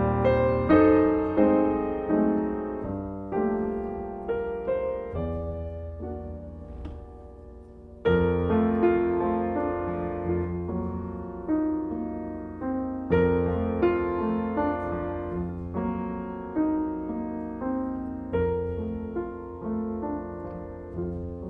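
Solo piano playing a gentle piece, its chords struck about once a second and left to ring. About six seconds in the sound fades away, and a loud new chord comes in about eight seconds in.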